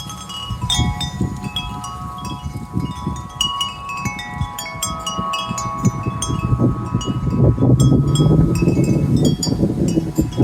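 Several wind chimes ringing in the breeze: many overlapping strikes whose tones hang on and blend. A low rumble of passing road traffic swells up in the second half.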